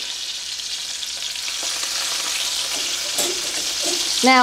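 Steamed Brussels sprouts sizzling in hot bacon fat and butter in a cast-iron skillet: a steady frying hiss with a couple of faint clicks.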